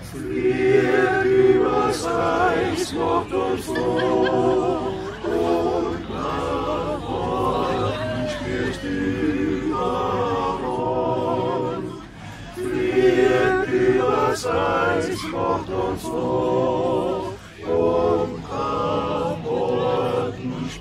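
Men's choir singing a cappella in long held phrases, with a short break for breath about twelve seconds in and another a few seconds later.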